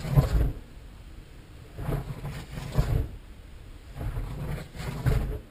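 Kinetic K2M dynamic-soaring glider circling in the lee at high speed, its airframe whooshing past in rising and falling surges about every second or two, over wind rumble on the microphone.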